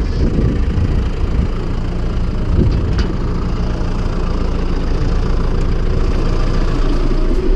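Tractor diesel engine running steadily, heard from close beside the tractor.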